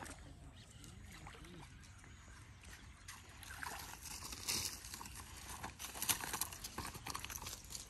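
Water sloshing and splashing in a run of irregular crackling splashes that grows busier about halfway through, over a low steady background rumble.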